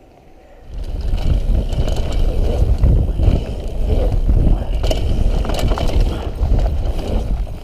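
Mountain bike ridden fast down a dirt trail, heard from a camera on the rider: a loud rushing rumble of wind on the microphone and tyres on dirt, with the bike clattering and knocking over bumps. It starts suddenly under a second in.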